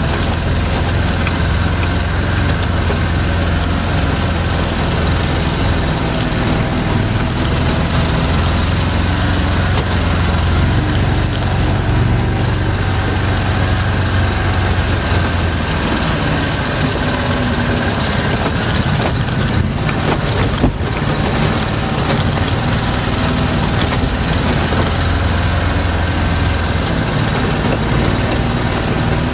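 Engine of an off-road vehicle running steadily as it drives along a dirt trail, heard from aboard, its low drone easing off for a while in the latter half. A couple of brief knocks come about two-thirds of the way through.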